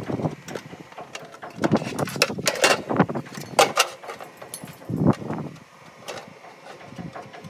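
Aluminium half-round gutter and metal gutter hangers clicking and clanking as the gutter is set into the hangers and worked with a hand tool. There is a run of sharp metallic clicks and knocks, a heavier knock about five seconds in, and then quieter handling.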